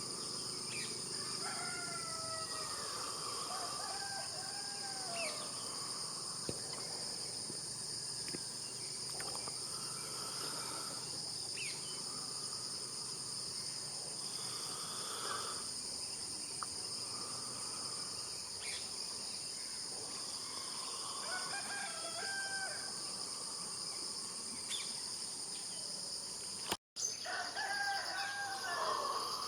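Repeated bird calls, rising and falling in pitch, over a constant shrill insect chorus.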